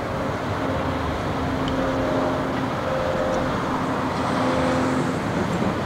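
Steady rumble of road traffic, with a faint hum that comes and goes.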